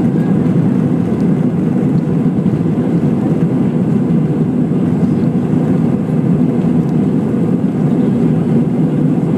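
Steady low rumble of an Airbus A320-216's CFM56-5B engines and airframe, heard inside the passenger cabin as the airliner rolls along the runway for takeoff.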